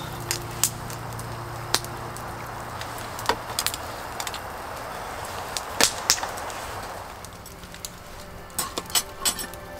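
Steady hiss of a pot simmering on a camp gas burner, with scattered light clinks of chopsticks and spoons against stainless steel bowls. Near the end the hiss drops away and a wood fire crackles with a few sharp pops.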